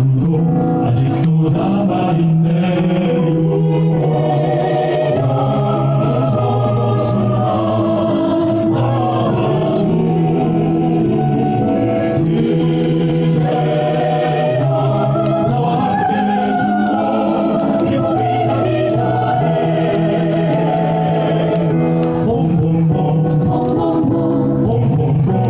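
A choir singing in harmony, many voices holding sustained chords that change every second or two.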